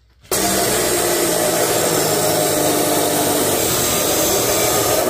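Abrasive chop saw's cut-off wheel grinding through a steel tube: a loud, steady grinding with a whine. It starts suddenly about a third of a second in.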